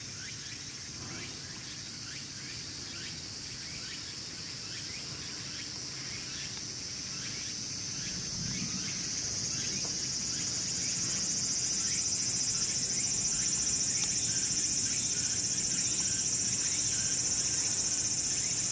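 Cicadas droning in a steady high-pitched summer chorus that swells louder about halfway through and then holds. A fainter, quickly pulsing insect call runs underneath in the first half.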